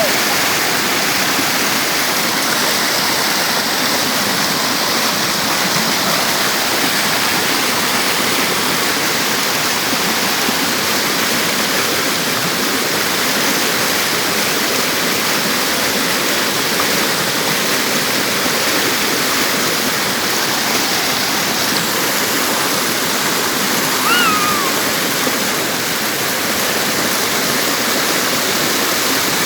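Waterfall: a steady, even rush of falling water. A brief chirp sounds once, about three-quarters of the way through.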